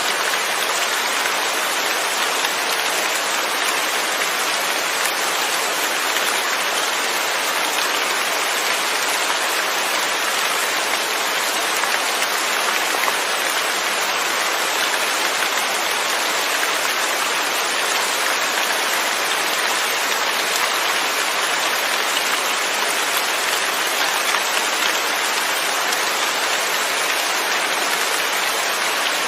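Steady rain falling, an even hiss of drops with no thunder and no change in strength.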